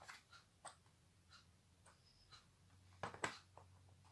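Faint small clicks and light rustling of a plastic embroidery floss winder being handled and fitted, with a sharper pair of clicks about three seconds in.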